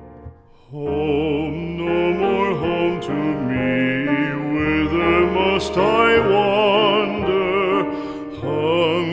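A classically trained voice singing a slow song with strong vibrato over piano accompaniment, coming in about a second in after a brief lull.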